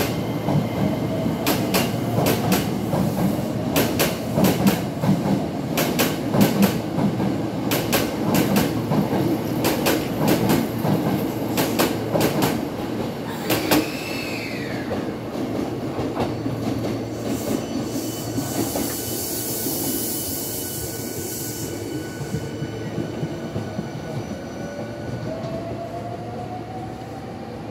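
Hankyu 9300 series electric train pulling out and picking up speed past the platform: its motor whine rises in pitch as it starts, and the wheels clatter over rail joints as the cars pass, with a short wheel squeal about halfway through. After the last car the clatter dies away, leaving a steady rumble and hiss, and another rising motor whine comes in near the end.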